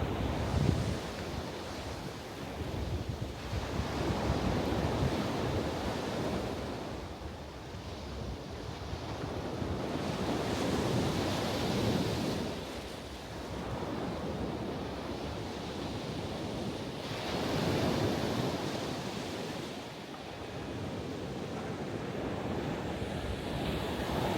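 Ocean waves breaking and washing in, swelling and falling away about every six seconds, with wind buffeting the microphone.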